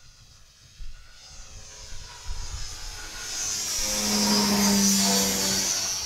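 Explorer BF F5J electric glider making a fast low pass: a rushing whoosh of air with a low steady hum. It swells over a couple of seconds to a peak about four to five seconds in, then starts to fade as the glider goes by.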